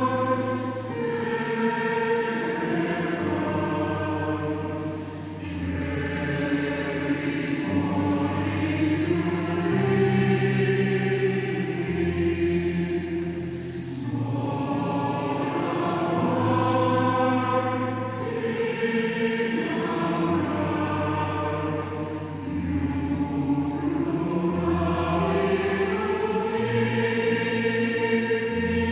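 Choir singing sustained chords in several parts, with the low notes moving every second or two.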